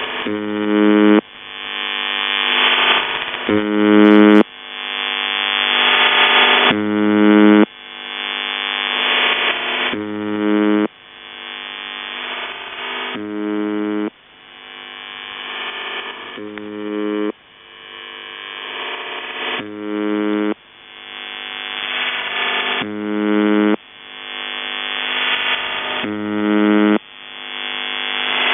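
Shortwave reception of the Russian 'Buzzer' UVB-76 on 4625 kHz: a harsh buzz about a second long, repeating roughly every three seconds. In the gaps the idle channel of the CIS-12 modem leaks through as a hissing, warbling 'snoring' that swells as the audio compression lets it in, then is cut off by the next buzz.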